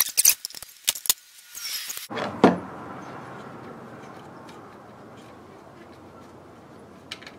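Light metallic clinking and rattling of kerosene heater parts being handled for about two seconds, followed by a single knock and then a steady faint hiss.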